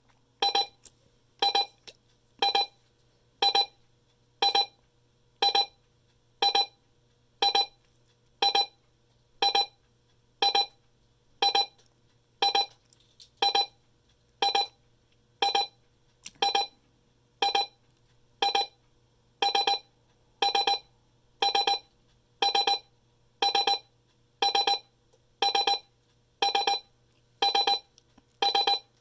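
Alertworks EAR-10 emergency alert radio sounding its alarm: short electronic beeps, about one a second, each with a rapid flutter, repeating evenly.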